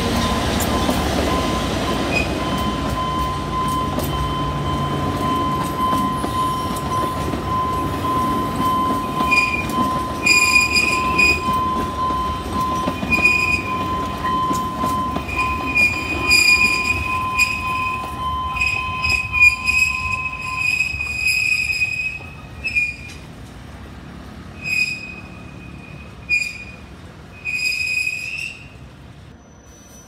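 Alishan Forest Railway train, a diesel locomotive hauling passenger cars, rolling slowly past on narrow-gauge track with a steady rumble. From about a third of the way in, the wheels give repeated high-pitched squeals on the curving track. The rumble fades about three-quarters through, and a few last squeals follow near the end.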